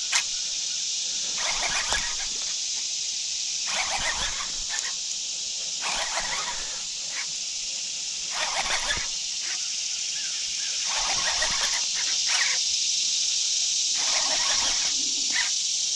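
Steady high-pitched insect chorus, broken every couple of seconds by short noisy bursts.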